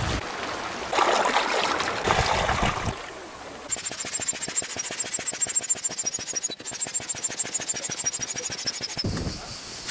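Sea water surging and splashing against shoreline rocks. About four seconds in it gives way to a rapid, even pulsing with a high, beaded tone over it, which stops shortly before the end.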